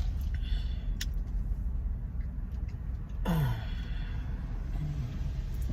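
Car interior rumble, steady and low, with a sharp click about a second in and a brief falling vocal sound about three seconds in.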